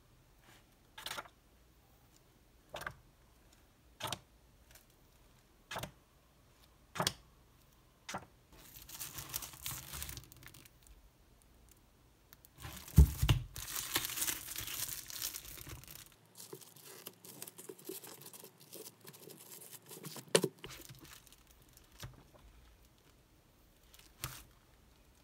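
Textbook pages turned by hand: about six quick page flips in the first eight seconds. Then a long stretch of plastic shrink wrap around a stack of new books crinkling as it is handled, loudest about thirteen seconds in, and two more page flips near the end.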